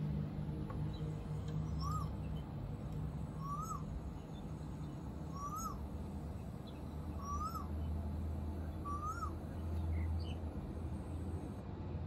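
Male Asian koel calling: five short rising calls, evenly spaced about two seconds apart, played back through a computer speaker over a steady low hum.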